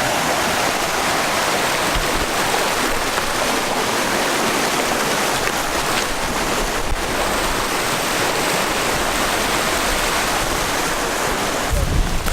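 Waterfall rushing with a steady, even hiss of falling water. A low rumble comes in near the end.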